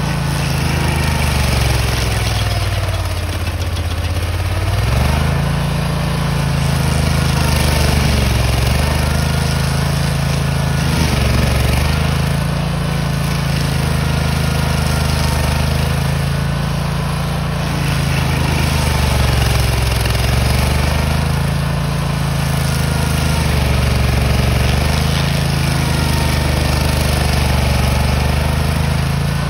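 Petrol engine of a tracked stump grinder running at full throttle while its cutter wheel grinds into a stump. The engine note dips and recovers every few seconds, most deeply about three to five seconds in, as the wheel bites under load.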